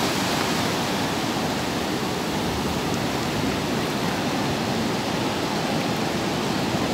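Steady, even rush of sea surf breaking at the beach, with no single wave standing out.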